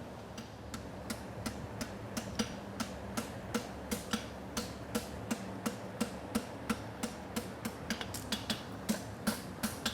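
Blacksmith's hammer striking hot steel bar stock on an anvil in a steady rhythm of about two to three blows a second, as the toe of a horseshoe is cracked (bent) during forging.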